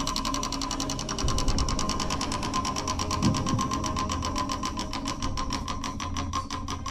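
Spinning prize wheel: its pointer flapper ticking rapidly against the pegs on the rim, the clicks gradually slowing as the wheel loses speed.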